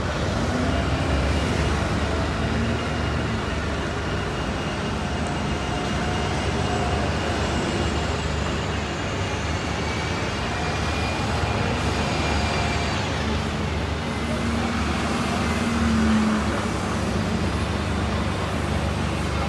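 Red double-decker buses moving slowly through a bus station: diesel engines running and tyres on tarmac, in a steady wash of road traffic noise with a faint high whine in the first half.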